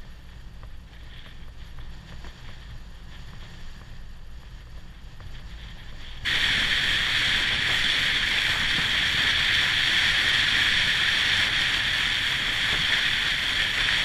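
Aluminum fishing boat under way on choppy water: at first a low rumble of wind and water. About six seconds in, a sudden, loud, steady rush of water and wind begins, heard from low on the side of the hull.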